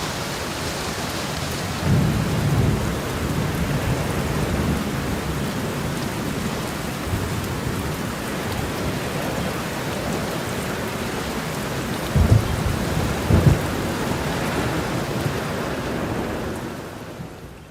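Steady rain falling, with low rolls of thunder rumbling about two seconds in and twice more near the end, before the sound fades out.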